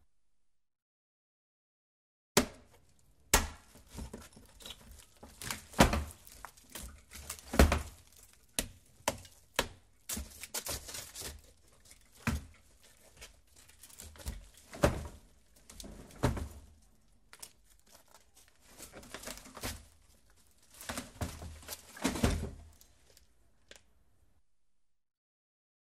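A door being handled: a long irregular series of sharp clicks, knocks and thuds with a few short scraping stretches, starting after about two seconds of silence and stopping a second or two before the end.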